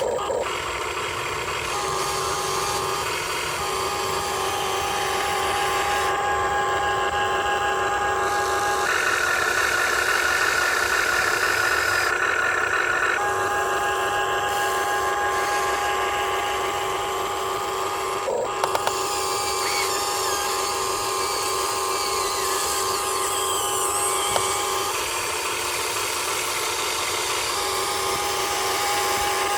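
Huina 1580 RC excavator's small electric motors and gearboxes running with a steady whine. The pitch shifts in steps every few seconds as different arm and track functions start and stop, and there is a brief click about two-thirds of the way through.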